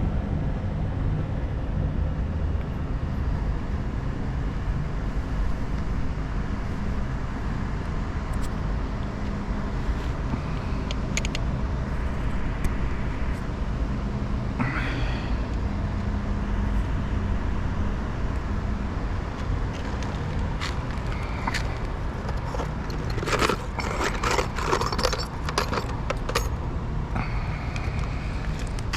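Steady low machinery hum with light metallic clinks and rattles, which gather into a busier clatter about three-quarters of the way through.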